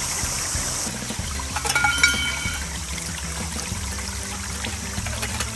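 Stream water trickling steadily, with a few light metallic clinks from the aluminium mess tin about two seconds in.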